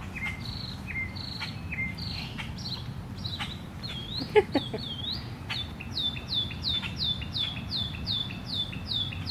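A songbird singing repeated clear whistled notes that turn, in the second half, into a quick even run of falling notes, about three a second, over a steady low outdoor rumble. A brief loud sound cuts in about four seconds in.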